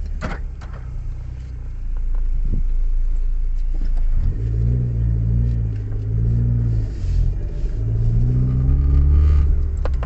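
Ford Lynx engine heard from inside the cabin: a low steady rumble that grows stronger and more pitched from about four seconds in, dipping briefly twice. There are a few sharp clicks near the start.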